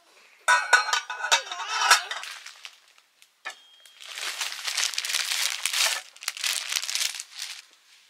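A brief high-pitched squeal with clicks, then crinkling and rustling for about three and a half seconds, with a short break partway through.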